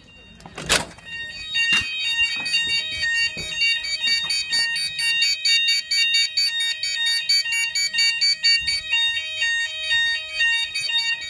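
Fire alarm sounder of a Hochiki fire alarm system sounding during a routine weekly test. It gives a loud, rapidly alternating multi-tone alarm that starts about a second in, just after a sharp click, and cuts off near the end.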